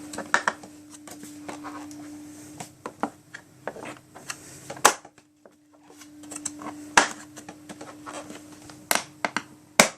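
Hard plastic vacuum cleaner parts being handled: scattered clicks and knocks, with sharp ones about five, seven and nine seconds in and another just before the end, over a faint steady hum.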